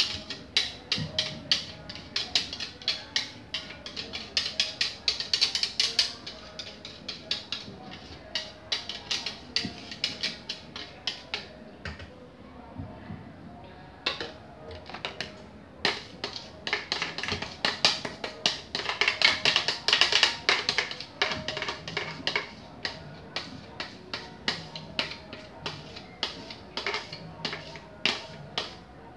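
A spoon knocking and scraping rapidly against a plastic blender jar, making many quick clicks a second as batter is worked out of it. The clicking slackens briefly near the middle.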